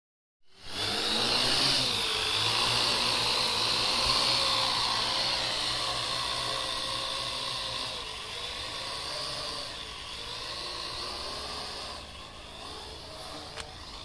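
Parrot AR.Drone quadcopter's four electric motors and propellers whining steadily in flight, the pitch wavering slightly as the motor speed changes. The sound grows gradually fainter over the second half.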